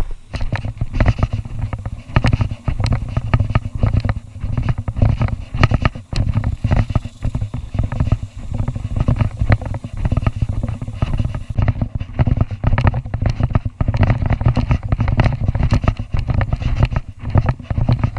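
Low rumble and dense, irregular knocks on the microphone of a body-worn GoPro Hero 4 Silver as its wearer walks a dirt trail: the camera being jostled and rubbed with each step.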